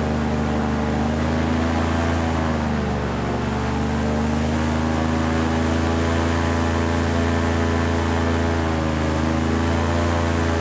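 Airboat engine and propeller running steadily at low throttle. The pitch sags briefly about three seconds in and again near the end as the throttle eases off and comes back.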